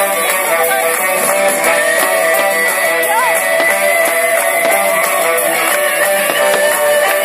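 Rock music with strummed guitar, loud and steady, with long held notes over it.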